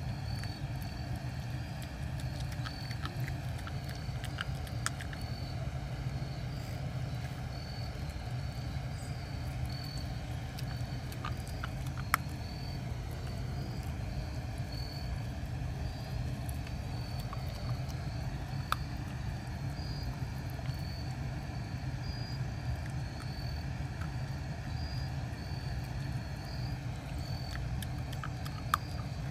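Goldendoodle puppy chewing a raw chicken head, with a few sharp crunches of bone. Behind it runs a steady low rumble and a faint high chirp repeating every second or so.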